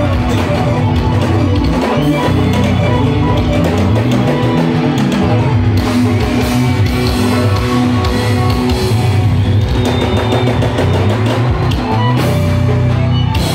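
Live band playing loud amplified music through a stage PA, with drums, bass and electric guitar, plus accordion and keyboard.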